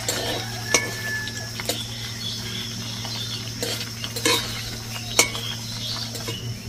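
Metal spatula clinking and scraping against an iron kadai, a handful of scattered taps, while paneer cubes fry over very low heat in mustard oil with a faint, steady sizzle underneath.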